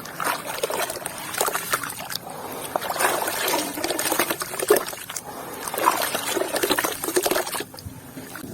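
White cement with grains crumbling, a crunchy crackle mixed with wet, watery sounds, coming in several bursts with short pauses between.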